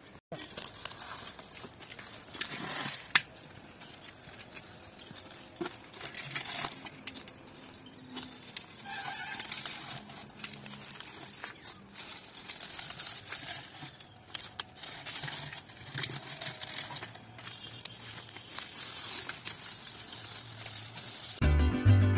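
Dry coconut fronds and husk fibre rustling and crackling as they are gathered and pushed into a clay pot, with irregular sharp snaps and clicks. Acoustic guitar music comes in near the end.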